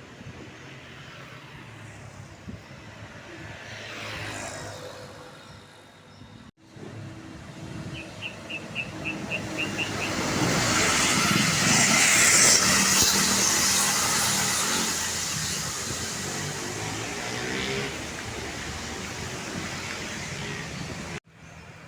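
A large bus passes along the road: its engine and tyre noise build up to the loudest point about twelve seconds in, then slowly fade. Just before that comes a quick run of about seven short, high chirps. The sound breaks off abruptly twice.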